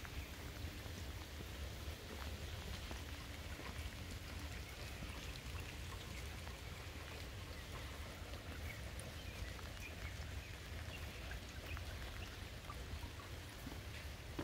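Light rain falling: a steady hiss with many small scattered drop ticks, over a steady low rumble.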